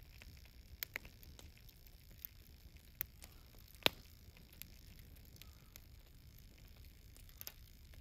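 Wood campfire crackling with scattered sharp pops, the loudest about four seconds in, over a faint steady hiss from the wet newspaper inside foil-wrapped sweet potatoes steaming in the embers.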